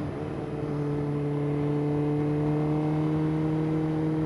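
Suzuki GSX-R600 motorcycle's inline-four engine running while riding. Its pitch dips slightly right at the start, then holds steady.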